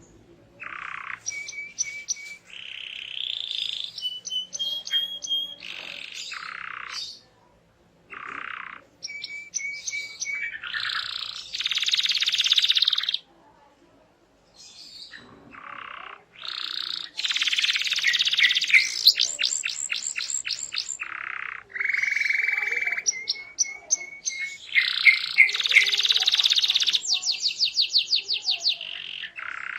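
Domestic canary in full, energetic song: a long run of varied phrases with held whistled notes, buzzy rolls and very rapid repeated-note trills, broken by brief pauses.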